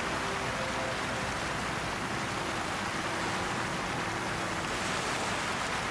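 Steady rushing of flowing water, an even hiss with no breaks, with faint sustained low tones beneath it.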